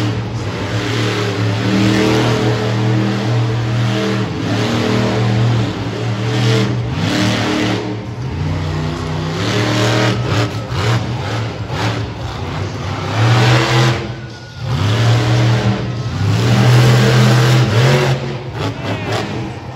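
Monster truck engine revving hard and continuously while the truck spins donuts, its pitch rising and falling with the throttle. The revs drop off briefly about three-quarters of the way in, then climb again as the truck drives up onto crushed cars near the end.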